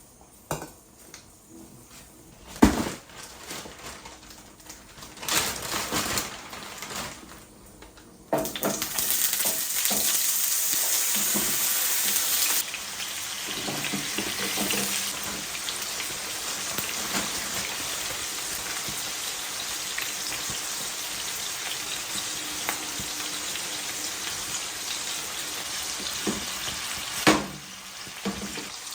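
Food hitting hot oil in a pan and sizzling loudly, the frying loudest for about four seconds and then settling into a steady sizzle. Clinks and knocks of utensils and pans come before it, and there is one knock near the end.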